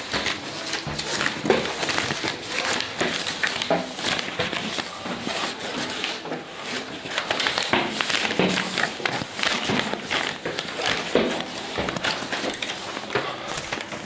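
Footsteps climbing a staircase, mixed with a steady rustle and many small clicks and knocks from the handheld camera being carried along.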